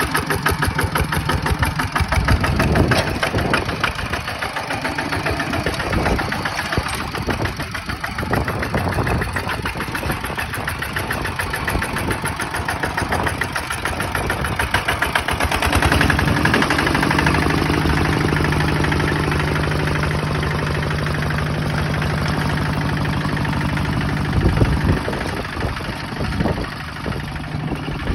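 Two-wheel walking tractor's single-cylinder diesel engine running under load as the tractor works a field on iron cage wheels, with an even, rapid firing beat; it runs louder and steadier past the middle.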